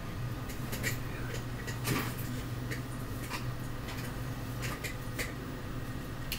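Scattered small clicks and light taps of tools and tablet parts being handled during a repair, over a steady low hum.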